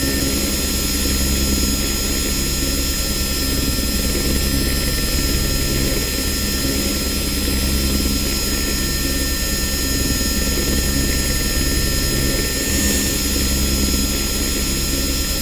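Helicopter running steadily: a deep, even drone with several thin, high whining tones held over it.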